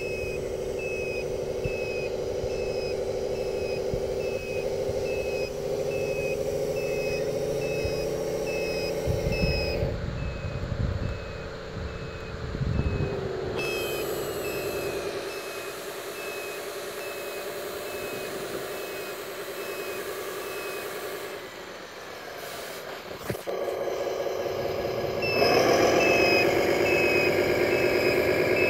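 Radio-controlled four-axle tipper truck's sound unit playing a diesel engine note with a reversing beeper beeping steadily while the truck backs up. The beeping pauses twice. The engine note drops a little past the middle, then rises and gets louder near the end as the beeping starts again.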